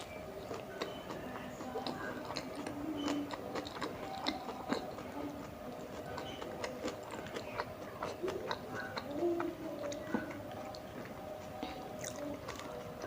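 Close-miked chewing of tandoori momos: many small wet mouth clicks and smacks while biting and chewing.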